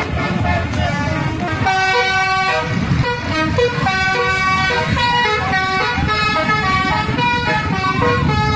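Indonesian bus 'telolet' horn, a set of multi-tone air horns, playing a jingle of held notes that change pitch about every half second, over a low rumbling noise.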